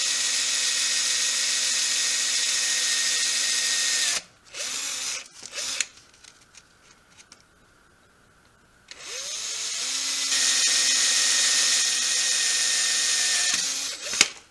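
Cordless drill boring holes through a copper pipe. It runs steadily, stops about four seconds in, gives a brief burst, and falls quiet for a few seconds. It then speeds up again and runs for about five seconds before winding down near the end.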